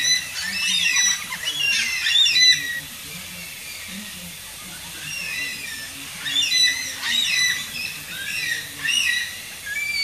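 A flock of Carnaby's black-cockatoos calling: clusters of short, harsh squawks overlapping one another, with a lull around three to five seconds in before the calling picks up again.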